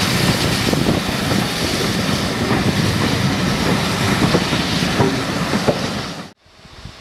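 Passenger coaches of a train rolling past close by, wheels clicking over rail joints and points. The sound cuts off suddenly near the end, leaving a much quieter background.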